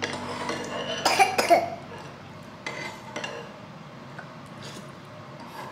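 A young child eating noodle soup from a spoon: a short, loud burst of mouth noise about a second in, then quieter eating sounds with a few light clicks of the spoon.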